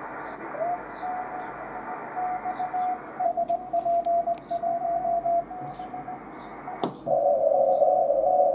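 Shortwave receiver audio played through a Daiwa AF-606K all-mode audio filter: a Morse code signal keyed on and off as a tone over band hiss. About three seconds in, the hiss narrows as the filter cuts the upper tones. Near the end, after a click, the filter narrows further and the tone comes through louder.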